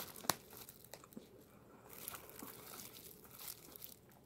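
Faint crinkling and rustling of plastic snack packaging being handled, with a sharp click about a third of a second in and more crackling later on.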